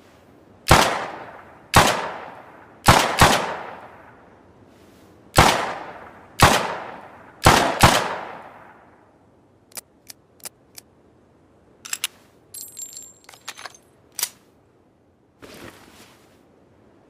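Improvised revolver sound effect: eight sharp gunshot-like bangs, each with a decaying ring, some in quick pairs. These are followed by four light clicks and then a brief metallic jingling rattle.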